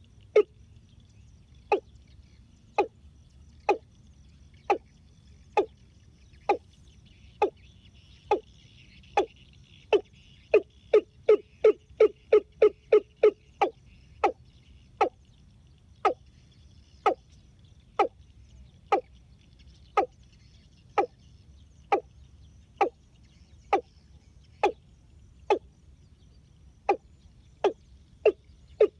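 Watercock calling: short, loud, low notes repeated about once a second. The notes quicken to about three a second around the middle, then slow back to about one a second.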